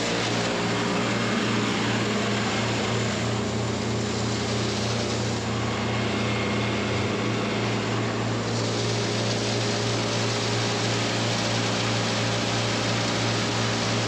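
Tractor engine running steadily, with a steady rushing noise over it.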